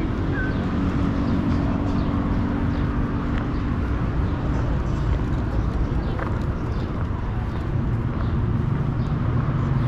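Steady low rumble of nearby road traffic, with a vehicle engine's hum that settles lower about halfway through.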